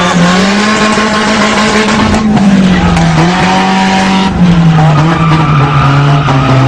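Car engine held at high revs, its pitch rising and falling as the throttle is worked, with tyres squealing as the car slides and spins.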